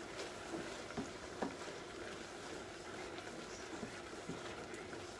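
Pasta simmering in a wide steel pan, giving a steady bubbling hiss, with a few light clicks and knocks against the pan.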